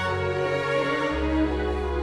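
Background music: slow, sustained string notes, with a deep low note coming in about halfway.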